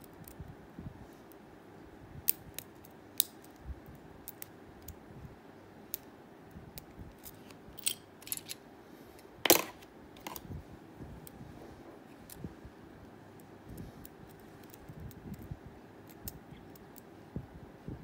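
Lock pick and tension wrench working the pins of a Blossom 50mm padlock: scattered small metallic clicks and ticks, with one louder clack about halfway through.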